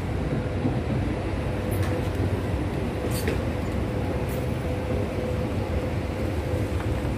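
Steady low rumble of city background noise with a constant faint hum, broken by a few light clicks.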